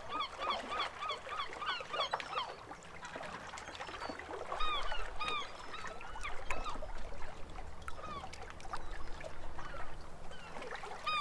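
Birds calling: a rapid, even run of short calls, about four a second, for the first two seconds, then scattered calls from several birds at different pitches.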